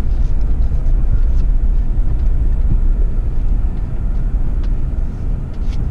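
2019 Ram 1500 Rebel pickup driving, a steady low rumble with a few light clicks.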